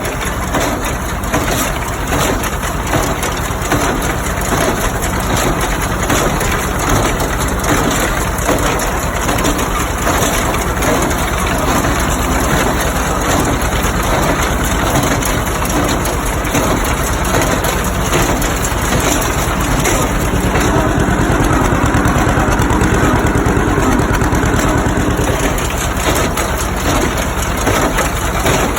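1952 John Deere A's two-cylinder engine running steadily under load while pulling a 1960 John Deere 14T baler, the baler's mechanism clattering and crunching as it packs hay. The sound swells somewhat from about twenty to twenty-five seconds in.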